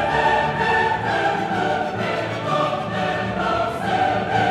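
Orchestral film-score music with a choir singing long held notes, the soundtrack of a night-time projection and fountain show.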